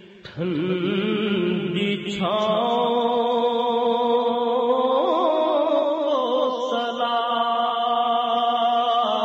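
Urdu naat being sung: a voice holds long, drawn-out notes with slow bends between lyric lines. It pauses briefly at the start, and a new held phrase rises in from about two seconds in.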